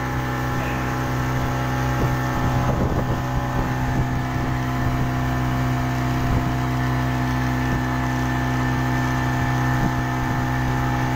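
A 40 hp outboard motor pushing a small fiberglass speedboat along at speed, running at a steady pitch. The rush of wind and water sounds underneath it.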